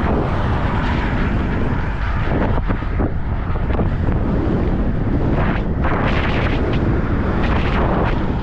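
Wind rushing over the microphone of a moving bicycle: a steady loud roar with gusts, over a low rumble.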